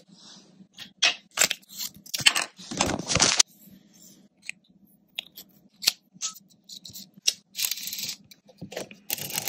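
Handling noise as a 35mm film cassette is fitted into a Yashica Mat 124G twin-lens reflex camera: a run of sharp clicks, scrapes and rustles, busiest in the first few seconds and again near the end.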